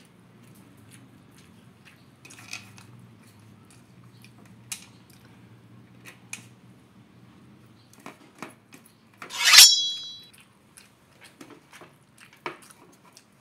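Hand-eating sounds of rice and fried tempeh: chewing with small clicks and taps over a faint low hum. About nine and a half seconds in comes one louder, sharp sound with a short ring.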